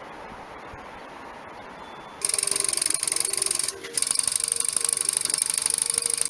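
Small model double-acting engine running fast: a rapid clattering tick of its strokes with a strong hiss. It starts abruptly about two seconds in, after quieter outdoor ambience, and breaks off for a moment about a second and a half later.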